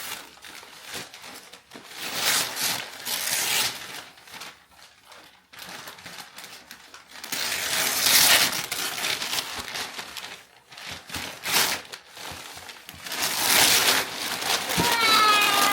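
A Lego kit's packaging being torn and crumpled open by hand, in three loud bursts of tearing with quieter rustling between.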